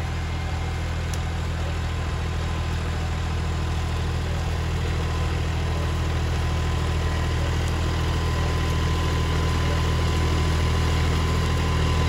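John Deere 4x4 farm tractor's diesel engine running steadily under load as it pulls a disc harrow through stubble, growing slowly louder as it comes closer.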